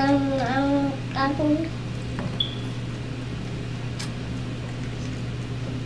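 A person's voice making a short wordless sound that rises and falls in pitch during the first second and a half, then only a steady low hum with a single faint click.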